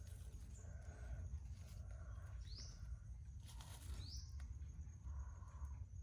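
Birds calling: two short, sharp upward chirps about a second and a half apart, with softer, lower calls between them, over a steady low rumble.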